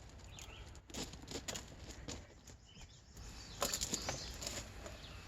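Knocks, clicks and rattles from a folding bicycle being handled, with a denser clatter from about three and a half to four and a half seconds in.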